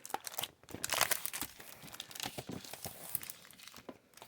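Crinkling and rustling of the packaging of a scrapbook paper collection as it is handled, in quick irregular crackles.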